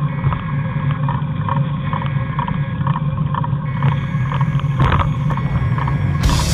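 Riding noise from a bicycle-mounted camera in motion: a steady low rumble with a light tick repeating about twice a second, and a brief louder rustle near five seconds.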